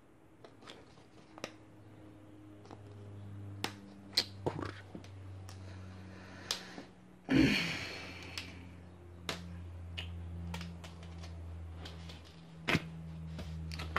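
Handling of a thin plastic cup and wooden toothpicks: scattered light clicks and taps, with one louder scraping rustle about seven seconds in. A faint low hum runs underneath.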